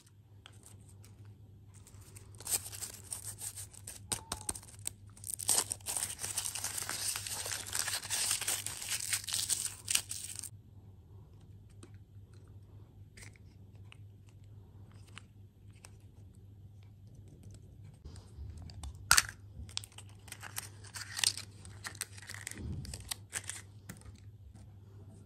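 Foil candy wrapper crinkling and tearing for about eight seconds as a chocolate egg is unwrapped, then quieter handling with a few sharp clicks and a short rustle.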